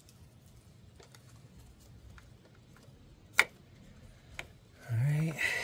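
Faint taps and small clicks of hand work on a motorcycle's rear brake parts while a hose clamp is refitted, with one sharp click about three and a half seconds in. A short voice sound, louder, comes near the end.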